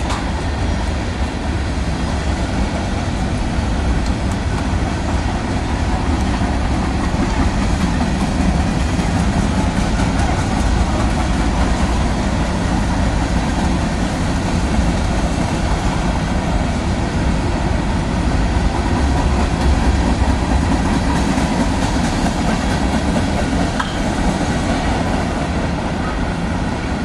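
BNSF manifest freight train's cars (tank cars, covered hoppers and boxcars) rolling slowly past. The steel wheels on the rails make a steady, continuous rumble and clatter.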